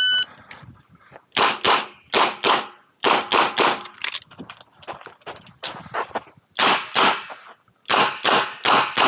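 A shot-timer beep starts the string, then a Smith & Wesson 929 9mm revolver fires a dozen or more shots, mostly in quick pairs, from about a second and a half in.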